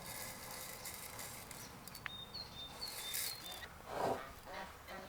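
Geese honking, with short calls coming more often toward the end, over bursts of faint hissy rustling.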